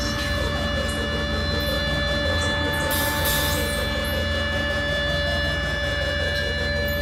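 Sustained electric guitar amplifier feedback: several steady held tones over a constant low amp hum, with a brief hiss about three seconds in.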